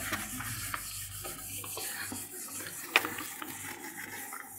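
A whiteboard eraser rubbing across a marker-written whiteboard, wiping it clean, with one sharp knock about three seconds in.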